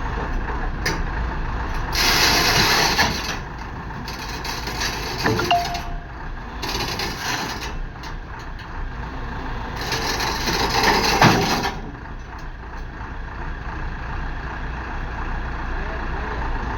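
Hyundai 140LC-9 excavator running steadily, with four bursts of rushing, scraping noise as it works while loading.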